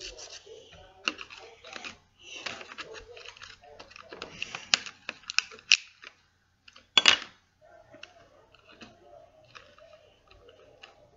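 Quick scratching and scraping strokes and light clicks as chalk pastel sticks are handled in their plastic tray, busiest in the first half, with one louder scrape about seven seconds in.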